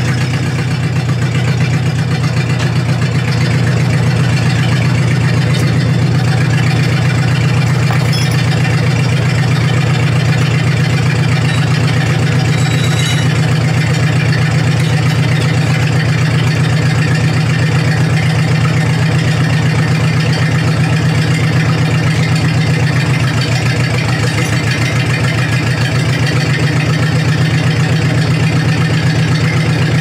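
An engine idling steadily at an even speed, with a rapid, regular beat and no change in pitch.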